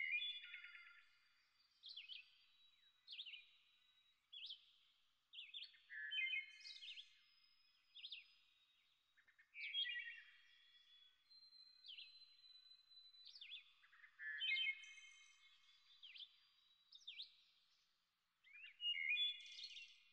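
Birds singing, faintly: a string of short chirps that sweep down in pitch, coming every second or two, with a thin steady high whistle beneath them in places.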